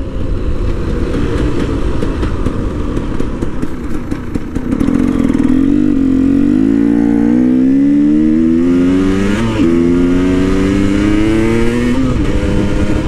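2011 KTM 300 EXC two-stroke dirt bike engine, fitted with an FMF expansion chamber and the stock silencer, which make it really loud, running under way. The engine holds a steady note, then revs up from about halfway through. After a short break for a gear change it climbs again and drops off near the end.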